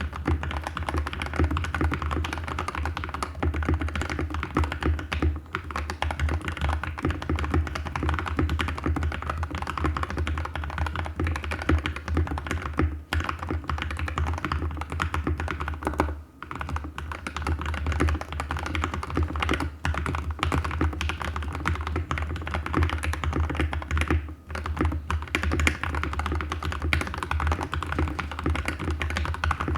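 Continuous fast typing on a custom mechanical keyboard with lubed linear Gateron switches and greased stabilisers, a dense run of keystrokes broken by a few short pauses, over a steady low hum.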